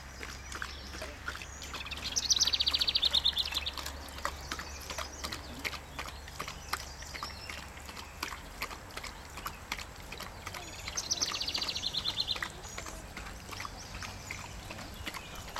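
German Shepherd lapping water from the stream of a paw-pedal dog water fountain: a long run of quick, wet laps. Twice a bird sings a rapid high trill, a couple of seconds in and again about eleven seconds in, louder than the lapping.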